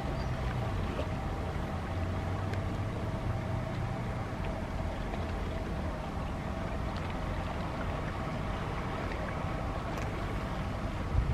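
Steady engine-like drone with several held tones, with wind rumbling on the microphone.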